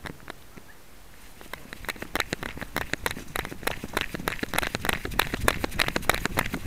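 Rapid clicking, crackling and rustling from a small camera strapped to a cairn terrier as the dog runs through vegetation: the camera knocking and rubbing against the dog and brushing past foliage. It gets busier and louder from about two seconds in.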